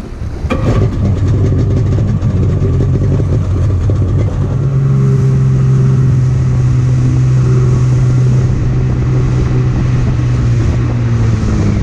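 Freshly rebuilt 1997 Sea-Doo GS personal watercraft's two-stroke engine, throttled up about half a second in and accelerating, then running at a steady cruising pitch, with water and spray rushing along the hull.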